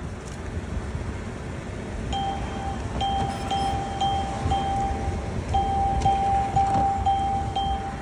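Drive-up ATM beeping repeatedly during a cash deposit: a run of short, high beeps at about two a second, starting about two seconds in, some running together. Beneath them is the low rumble of the idling car.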